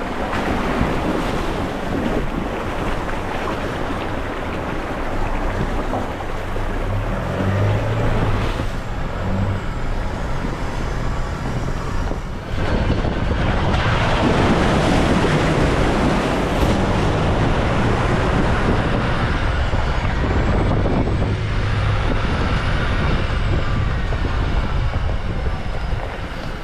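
Four-wheel-drive engine running under load with a steady rush of splashing water, as when a vehicle wades a creek crossing. It gets louder about halfway through.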